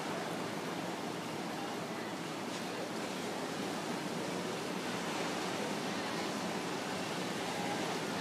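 Ocean surf heard as a steady, even wash of noise.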